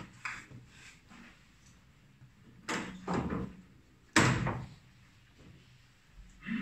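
A few hard knocks of billiard balls on a boccette table, the balls striking each other and the cushions. A pair comes about three seconds in, the sharpest and loudest just after four seconds, and one more near the end.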